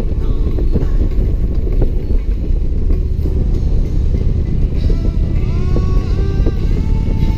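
Touring motorcycle running at cruising speed, its engine and wind noise forming a steady low rumble. Music plays along with it, and a melody line comes up about five seconds in.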